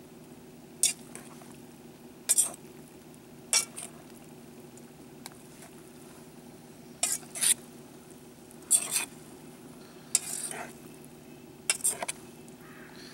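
A metal fork stirring pasta in a stainless steel pot, clinking and scraping sharply against the pot's side at irregular intervals, about ten times, over a steady low hum.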